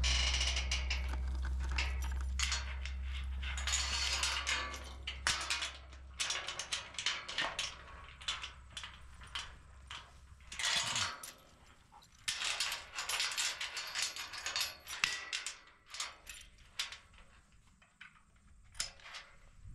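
Chain and rusty steel pasture gate rattling and clanking as they are handled, in an uneven run of sharp clicks and jangles. A low steady rumble underneath stops about six seconds in.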